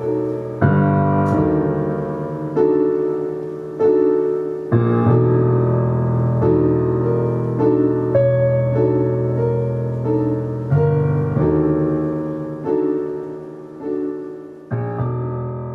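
Slow keyboard music: sustained chords struck roughly once a second and left to ring and fade before the next.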